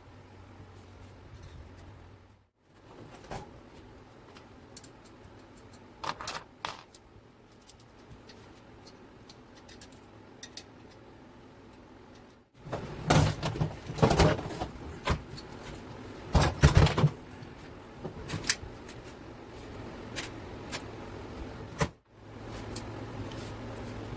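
Metal tools and engine parts clinking and rattling as they are handled on a workbench, a few scattered clinks early and a dense burst of clatter about halfway through. A steady low hum runs under it at the start and again near the end.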